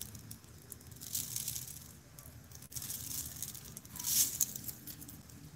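Glitter shaken from a clear plastic shaker bottle onto a glitter tumbler: a hissing rattle in two spells, about a second in and again, louder, about four seconds in.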